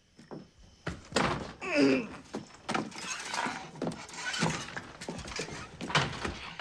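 A door and heavy, irregular footsteps: a run of knocks and thuds, with a short creak about two seconds in.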